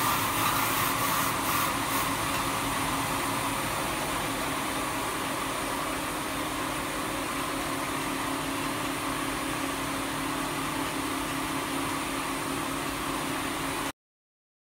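Jonsen SD300-WJS+3D wet deburring and edge-rounding machine running, its belt and planetary brush heads and conveyor giving a steady whirring hum with a low steady tone. The sound cuts off suddenly near the end.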